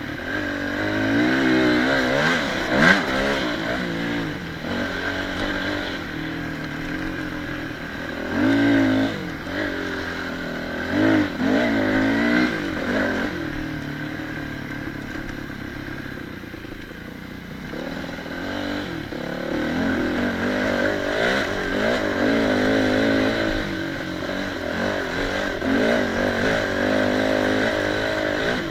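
Yamaha WR250 dirt bike engine being ridden, its pitch rising and falling with repeated blips of throttle, easing off to a lower, quieter run in the middle before picking up again.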